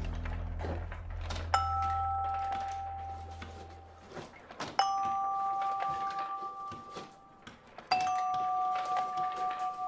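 Single vibraphone notes on a wooden marble music machine: three separate bell-like notes about three seconds apart, each ringing on and slowly fading, over a low bass note dying away in the first few seconds.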